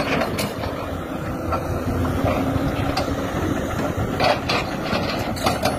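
Doosan tracked excavator working rocky ground: its diesel engine runs steadily under load, with irregular clanks and knocks of steel on rock as the arm's attachment digs. A sharper clank comes a little past four seconds in.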